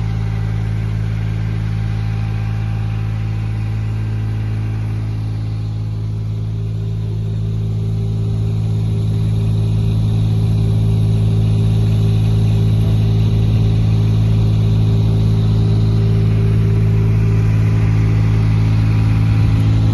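An engine running steadily at an even speed, a constant low hum, growing a little louder about halfway through.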